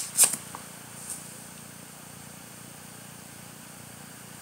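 A small folded slip of paper being unfolded by hand: a few short crisp rustles at the start and one faint one about a second in, then only a steady low hiss.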